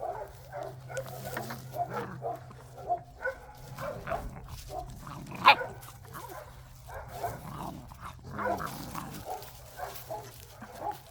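A litter of seven-week-old Belgian Malinois puppies yipping, whimpering and growling in short bursts as they feed on meat. One louder, sharp sound comes about five and a half seconds in.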